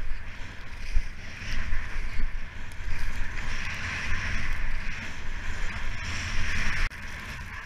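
Skis hissing and scraping through fresh powder snow at speed, with wind buffeting the helmet camera's microphone; the sound swells in the middle and stops abruptly near the end.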